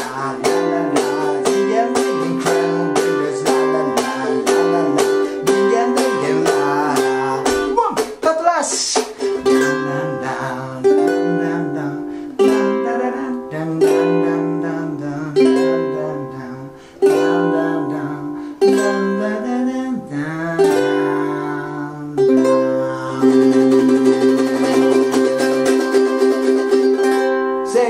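Thin-bodied ukulele (G-LABO Usulele) strummed in a choppy eight-beat rhythm on C and G7 chords, with a man singing "la la la" along. In the last few seconds it settles on a long ringing C chord.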